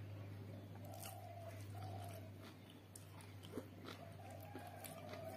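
Close-up chewing and crunching of chicken and rice being eaten, with small wet clicks, over a steady low electrical hum.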